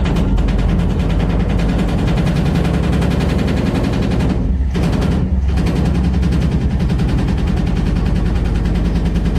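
Loud, rapid mechanical rattling over a steady low hum from a running machine, easing off briefly about halfway through and then picking up again.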